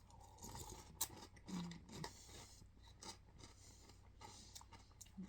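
Faint chewing of a mouthful of sweetened corn cereal in milk: small crunches and clicks, with a short hum about one and a half seconds in.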